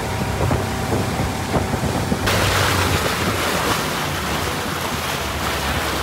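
A small boat's motor running underway, with wind on the microphone and water rushing past the hull. About two seconds in, the wind and water hiss jumps louder and stays up.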